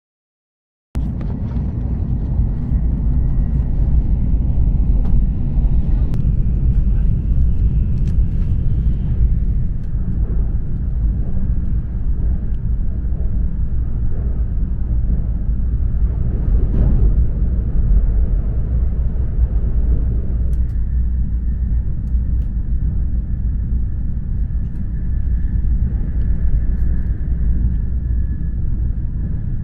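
Steady low rumble of a Shinkansen bullet train running at speed, heard from inside the passenger car; it starts abruptly about a second in.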